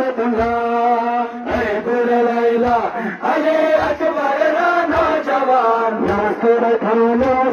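Men's voices chanting a noha, a Shia Muharram lament, in long drawn-out notes. A low thump comes about once a second in time with the chant: the mourners' chest-beating (matam).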